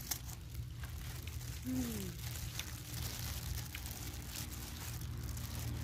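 Eating and food-handling noises: plastic food gloves crinkling and small crunches and clicks as fresh leaves and pounded chicken salad are picked up and chewed. A short falling vocal hum comes about two seconds in, over a steady low rumble.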